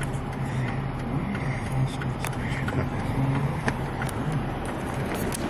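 Vehicle engine idling with a steady low hum, with a few light clicks over it.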